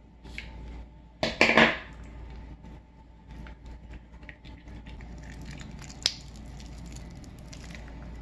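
Scissors cutting into a filled rubber balloon about a second in, the loudest sound. After it comes a run of small crackles and clicks as hands squeeze and knead the balloon, with one sharp click near the six-second mark.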